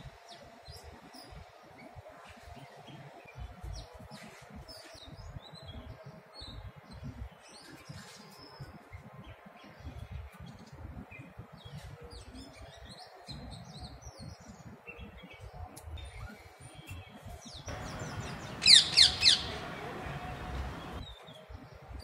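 Birds chirping sporadically, with a quick run of four loud, sharp, downward-sweeping calls about three-quarters of the way through, over a low rumble on the microphone.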